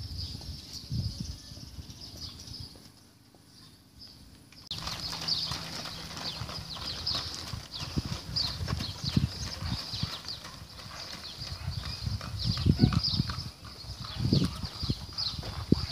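Haflinger mare's hooves clip-clopping on a gravel driveway as she pulls a two-wheeled cart, starting about five seconds in.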